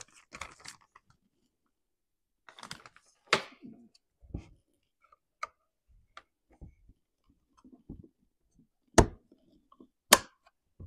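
Plastic bag crinkling as a new air filter is unwrapped, then scattered light clicks and taps of plastic parts being handled on a Stihl MS250 chainsaw, with two sharp clicks near the end as the filter is pressed into place.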